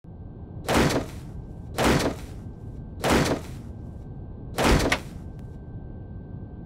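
Four loud, sudden, hissy hits about a second apart, each dying away within half a second, over a faint steady high tone.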